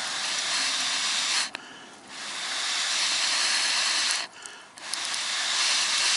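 Long breaths blown onto a small wood fire to get freshly added kindling to catch: three long blows of air, each lasting one and a half to two seconds, with short breaks between them.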